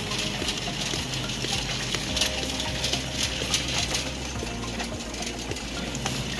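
Metal wire shopping cart rattling and clicking as it is pushed across a hard store floor, over a steady low hum.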